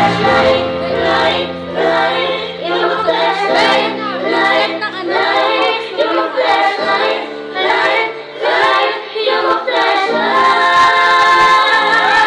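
A group of women singing together into a microphone over a backing track with steady low notes, ending on a long held high note.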